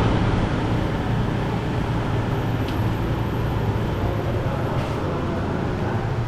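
A motor engine runs steadily with a low drone, under a constant rushing noise, as when travelling under way.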